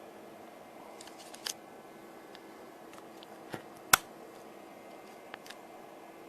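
A handful of sharp clicks and taps over a steady faint hiss and hum. There are a few about a second in, a single loud click about four seconds in, and two faint ones near the end.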